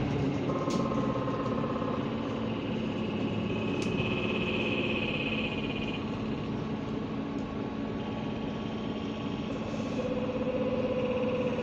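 Interior of a Mercedes-Benz Citaro G articulated bus on the move: engine and drivetrain running under steady road rumble, with a few whining tones that shift in pitch a few times as the bus changes speed.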